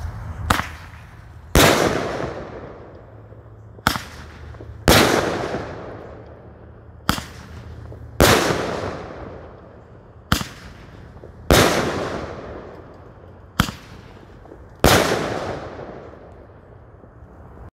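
Roman candle firing five shots with thunder stars: each shot is a sharp launch pop, then about a second later a louder bang as the star bursts, echoing away for a couple of seconds.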